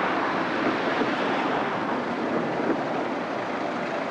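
Steady rumble of slow town traffic, a double-decker bus and cars driving along the street.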